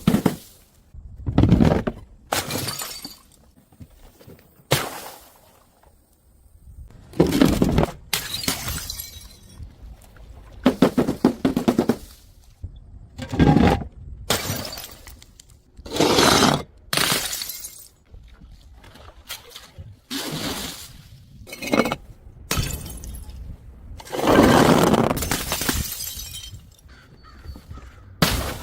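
Glass bottles smashing one after another, about a dozen sudden crashes with short gaps between them, some with a heavy thump at the impact and each with a brief ring-out afterwards.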